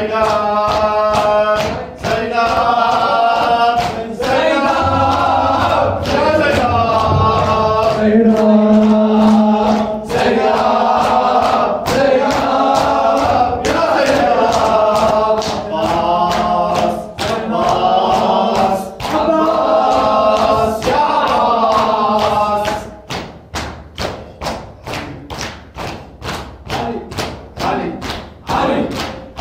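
A group chanting a latmiya lament in unison over rhythmic chest-beating (latm), the open-handed strikes landing about twice a second. About 23 seconds in the chanting stops and the chest-beating carries on alone, quieter.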